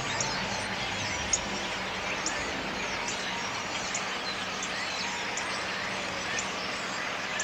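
A flock of birds chirping in the trees, many short overlapping calls throughout.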